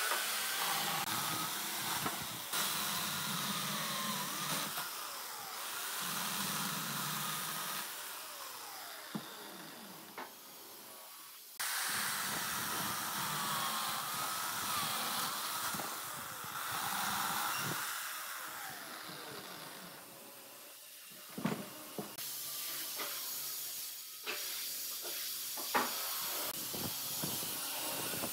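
Corded electric chainsaw cutting through a dry tree stump: a steady hissing whine of the chain through the wood, whose pitch wavers as the cut loads it. It breaks off and starts again abruptly a couple of times.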